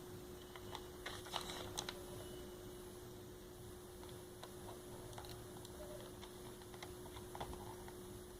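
Light, scattered clicks and taps of a small screwdriver and the mouse's plastic shell being handled while its hidden screws are taken out. There is a quick run of clicks about a second in, then single ticks every second or so, over a faint steady hum.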